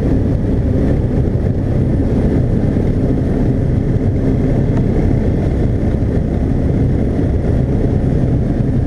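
High-wing light aircraft's propeller engine running steadily as the plane rolls along the ground, with wind rushing over a camera mounted on the wing strut.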